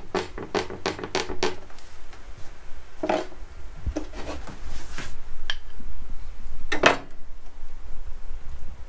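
Chisel working on a tongue-and-groove floorboard to cut away its tongue: a quick run of sharp woody knocks and clicks at first, then single knocks every second or so, the loudest about seven seconds in.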